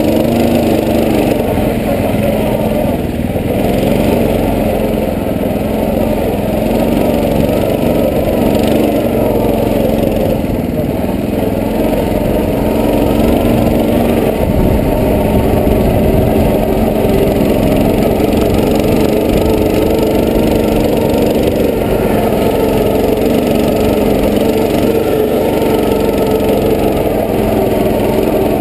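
Quad bike (ATV) engine running continuously under load, its pitch rising and falling with the throttle, heard from the machine itself over a constant low rumble of the ride.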